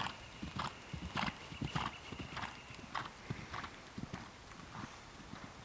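Hoofbeats of a ridden pinto mare moving over a sand arena, in a steady rhythm of about three strides every two seconds, a little quieter in the last second or so.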